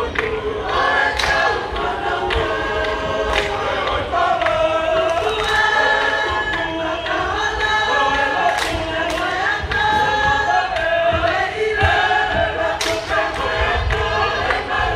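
Tongan lakalaka: a choir of men and women singing a chanted song, with short sharp beats every second or so.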